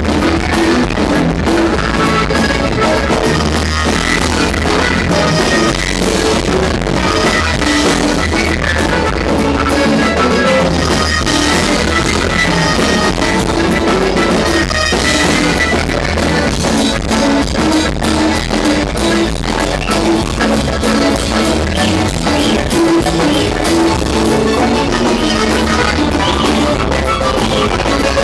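Live norteño band playing a song, with accordion, guitar, bass and drum kit.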